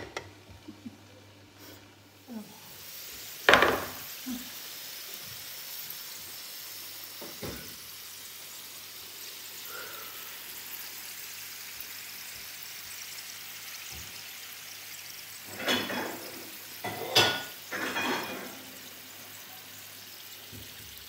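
Hot metal baking tray of oven-roasted potato halves sizzling steadily, with a sharp clank about three and a half seconds in and a run of metal clatters near the end.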